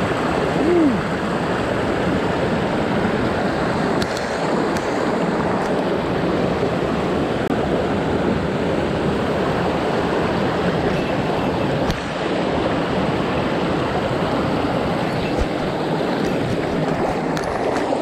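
Mountain stream water rushing steadily over rocks, a loud, even noise with a few faint ticks over it.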